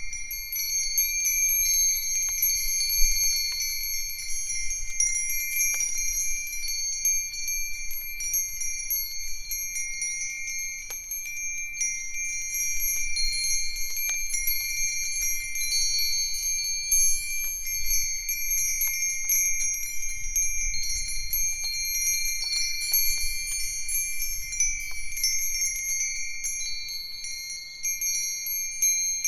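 Japanese furin wind chimes (Myōchin iron fire-chopstick chimes, Nanbu cast-iron bells, Nousaku bells and a sanukite stone chime) ringing together in the breeze. Strikes come at irregular moments and their clear, high tones overlap and sustain, with a faint low rumble underneath.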